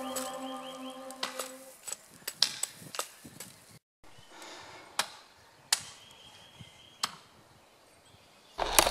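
Hatchet blows on wood: single sharp chops at uneven spacing, with a louder, longer knock near the end. Background music fades out in the first two seconds.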